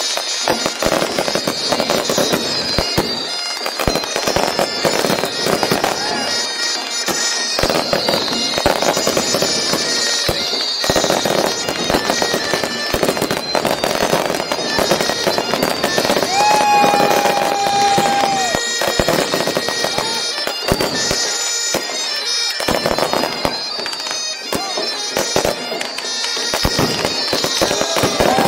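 A fireworks display: rapid bangs and crackling, with repeated high whistles that fall in pitch from whistling shells. A longer, steadier whistle lasts about two seconds, a little past the middle.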